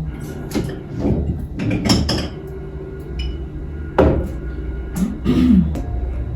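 A few knocks and clatters of objects being handled, the sharpest about four seconds in, over a steady low hum.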